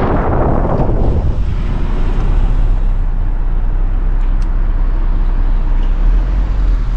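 Car driving slowly through a turn: a steady low rumble of engine and road noise, with a louder rush of noise that dies away about a second in.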